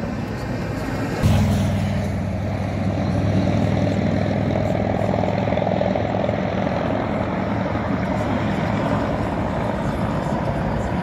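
Steady low engine drone. About a second in it changes abruptly and becomes louder and deeper.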